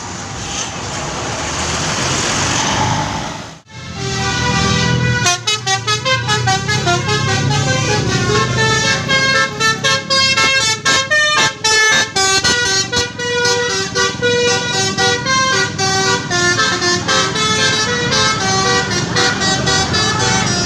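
Telolet-style multi-tone musical horn (a basuri horn) on a vehicle playing a fast tune of stepping notes, with short breaks between phrases, starting about four seconds in. Before it, a few seconds of vehicle noise.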